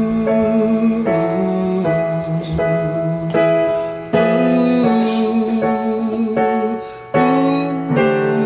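Keyboard playing a slow instrumental passage of held chords, changing every second or so, with a fresh chord struck after brief decays about four and seven seconds in.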